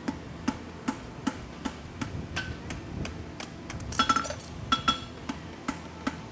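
Farrier's hammer striking a red-hot steel horseshoe bar on an anvil, forging the shoe, in a steady rhythm of about two to three blows a second. A few blows about four and five seconds in ring out louder with a clear metallic tone.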